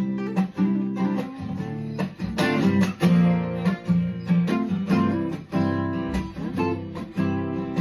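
Background music: guitar playing plucked and strummed notes in a steady rhythm.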